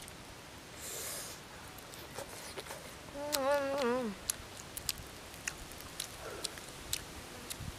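Scattered light clicks and crackles of fingers picking apart grilled fish. About three seconds in comes a short, wavering hummed 'mmm' that drops in pitch as it ends.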